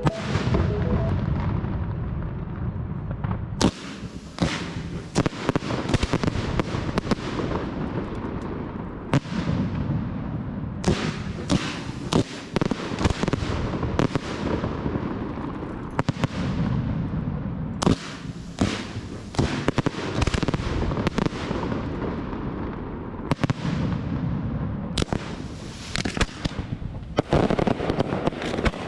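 Castillo de fuegos artificiales, a Valencian aerial fireworks display: loud shell bursts about every second, each fading out after the report, coming thicker in a dense run near the end.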